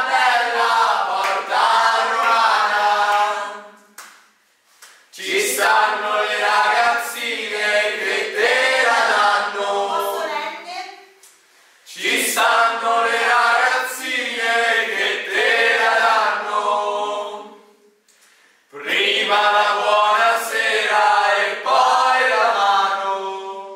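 A mixed group of men and women singing together in unison, in four long phrases separated by short pauses.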